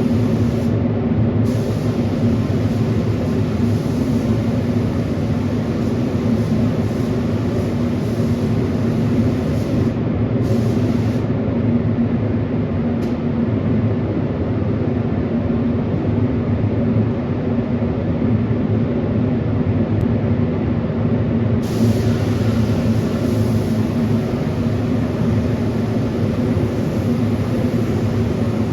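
A steady machine drone with a low hum, running without a break, with a hiss on top that cuts out a few times and is gone for a long stretch in the middle.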